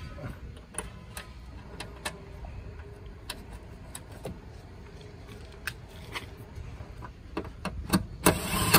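Scattered light clicks and knocks of hands fitting connectors and fittings on the underside of an electric car. Near the end a power tool with a socket extension starts up loudly, driving a bolt.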